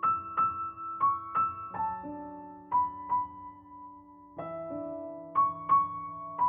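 Background piano music: a slow melody of single struck notes over held lower chords.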